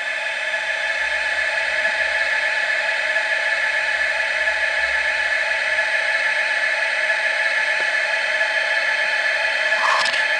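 Model steam launch's machinery running with a steady whir made of several fixed tones over a hiss; it swells at the start, then holds level. A brief small click sounds near the end.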